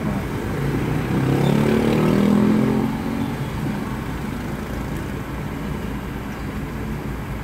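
Motor-vehicle engine noise in slow traffic, heard from inside a car: a steady low engine rumble, with a louder engine swell from about one to three seconds in that then settles back.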